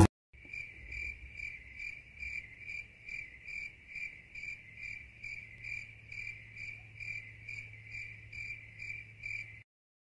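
A cricket chirping steadily, one short high chirp repeated evenly about two or three times a second, over a faint low hum; it stops suddenly near the end.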